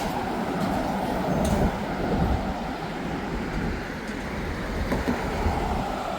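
Steady rush of road traffic crossing the Humber Bridge, a continuous mix of tyre and engine noise.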